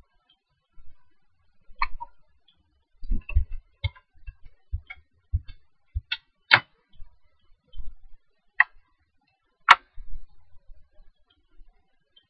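Computer mouse clicking: a handful of sharp clicks at irregular spacing, the loudest two about six and a half and nearly ten seconds in, with soft low thuds between about three and six seconds in.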